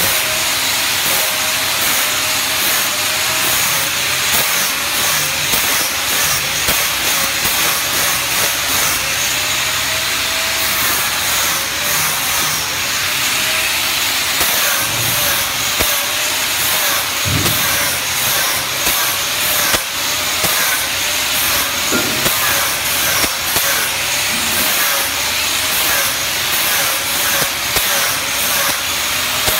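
Small hand-held grinder running against aluminium sheet, giving a steady hissing rasp. Its motor whine wavers and dips again and again as the load changes.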